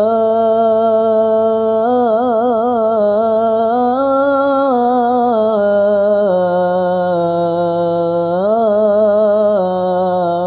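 A boy's voice chanting the adhan, the Islamic call to prayer, drawing out the last syllable of "hayya 'ala al-falah" in one long unbroken melismatic note. The note wavers in trills, steps down in pitch about halfway through and rises briefly near the end.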